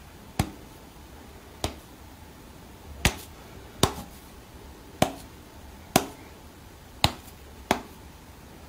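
A series of sharp single clicks, eight in all, spaced unevenly about a second apart, over a faint steady low hum.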